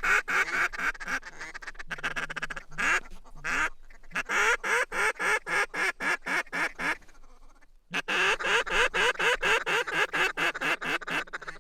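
Rapid, even run of duck and goose calls, about five a second. The run breaks off for about a second just past the middle, then resumes.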